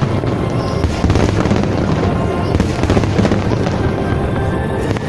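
Fireworks display: a dense, continuous run of bangs and crackle from bursting shells, with music playing underneath.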